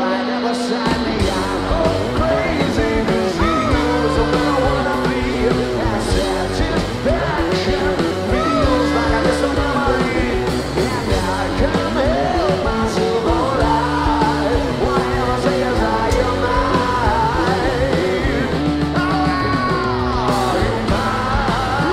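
Live rock band playing: electric guitars, bass and drums with singing over them. The full band comes in hard about a second in.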